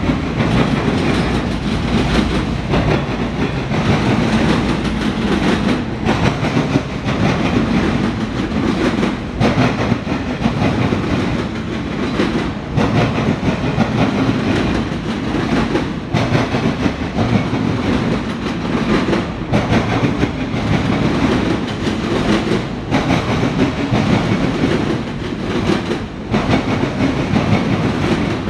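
A freight train of autorack cars rolling past, its steel wheels running on the rails in a steady loud noise that dips briefly about every three seconds.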